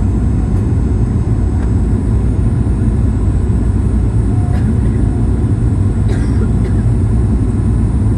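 Steady cabin noise inside a Boeing 737-900ER: a loud, even low rumble of airflow and the CFM56 jet engines, with a faint thin high whine running through it.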